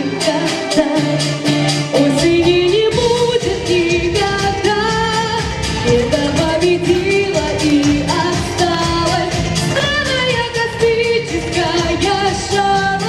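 A pop-style song with singing over a steady beat, the melody gliding and stepping in pitch.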